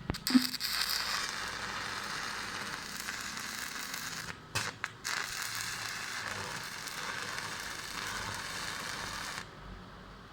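Stick welding arc from a 6013 electrode on thin sheet steel. The arc strikes with two sharp cracks, then crackles steadily. It breaks off briefly about four and a half seconds in, restrikes, and stops about nine and a half seconds in.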